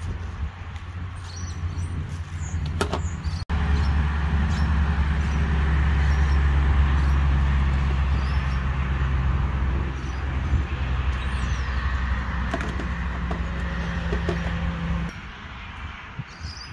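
An engine running steadily with a low hum. It cuts out for an instant about three and a half seconds in, returns louder, and drops away about fifteen seconds in.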